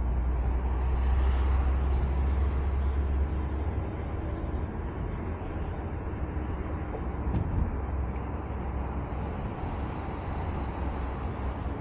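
Inside a 1998 BMW 328i (E36) at highway speed: the 2.8-litre straight-six's deep drone through an aftermarket Remus exhaust, with tyre and wind noise. The drone is strongest for the first three seconds, then eases a little, and there is a single light knock about seven seconds in.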